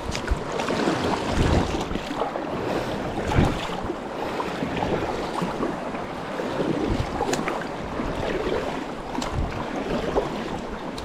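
Inflatable raft crew paddling forward: paddle blades dipping and splashing in the river, with irregular thumps over the steady rush of moving water.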